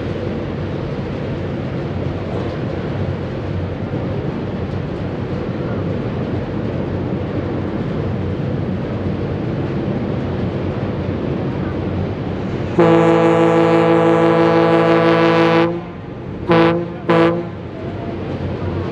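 Deep ship's horn on a ferry coming into port: one long blast of about three seconds, then two short blasts close together. Before the horn there is a steady rumble of wind and engine noise.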